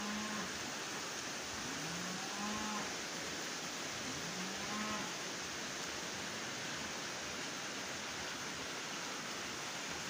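Shallow stream flowing over stones, a steady rush of water. Three short, low calls sound over it in the first half, each rising then held.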